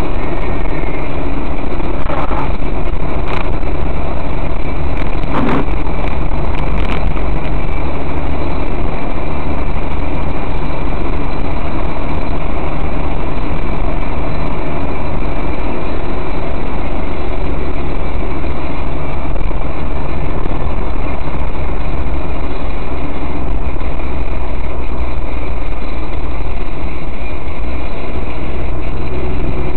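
Car engine and tyre noise inside the cabin while driving, a steady loud drone heard through a dashcam's built-in microphone. A few short knocks in the first seven seconds.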